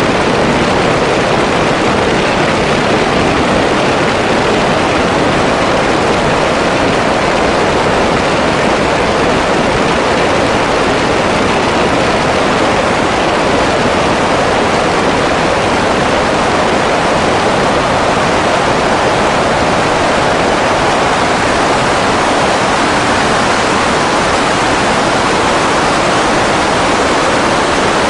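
Grumman G-164 Ag Cat seaplane's engine, propeller wash and wind making a steady, loud rushing noise, with no clear engine tone showing through.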